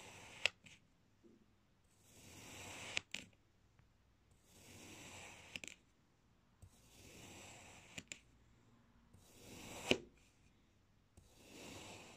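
Knife blade slicing through a packed block of kinetic sand, about every two and a half seconds: each cut is a soft, gritty hiss of about a second ending in a sharp tap, five taps in all, the loudest near the end.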